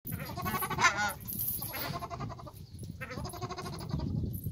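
Waterfowl calling: a few short nasal honks in a row, the loudest about a second in.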